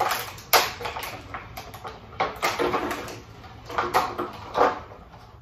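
Clear plastic action-figure packaging crinkling and rustling in irregular bursts as it is handled.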